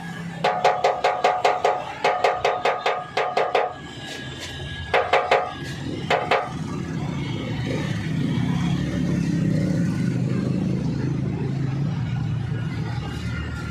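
Rapid hammer taps on ringing metal, in quick runs of about six or seven strikes a second, during radiator repair work. From about six seconds in, a steady low rumble of a passing vehicle swells and then eases.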